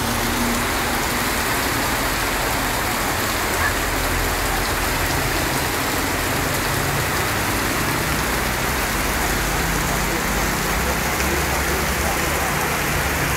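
Heavy storm rain falling steadily on a flooded street, a constant even hiss.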